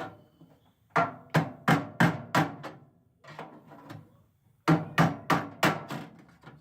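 Hammer driving a chisel against the microwave's sheet-metal casing to pop parts loose. The blows come in two quick runs of about three strikes a second, with a softer scraping pause between them.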